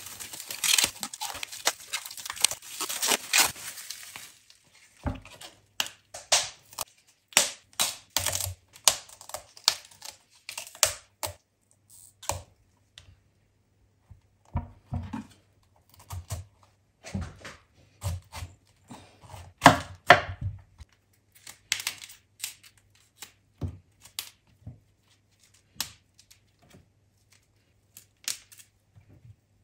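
Kitchen work: a rustling, tearing noise of packaging for about the first four seconds, then irregular knocks and clatter of utensils and containers being handled on the counter.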